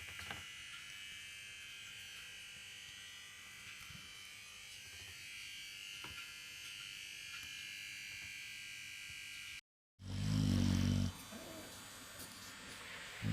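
A sleeping Staffordshire terrier snoring: one loud, low snore about ten seconds in, lasting about a second. Before it there is only faint steady background.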